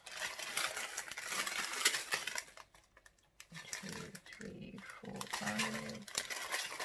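Plastic packets crinkling for about the first two and a half seconds, then, from about three and a half seconds in, a dog making a run of low vocal sounds.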